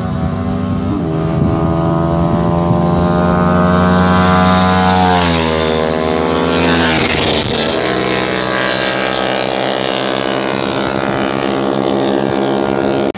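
Motorcycle engines running hard down a race-circuit straight, their pitch climbing as they approach, then falling steeply as they pass about five seconds in, with another bike going by a couple of seconds later.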